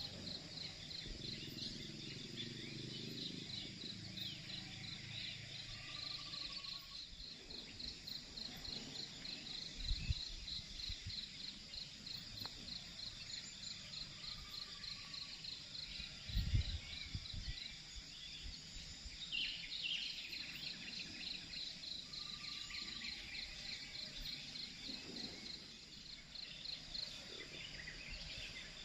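Insects chirping in an even, rapidly pulsing trill, with a bird giving a short call three times. Two brief low thumps stand out, about a third and just over halfway through.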